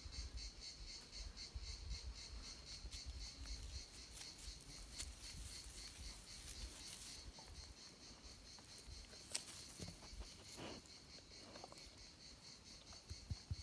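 Faint, steady chirring of insects, an even fast-pulsing high trill that never stops, with a few faint clicks and rustles near the end.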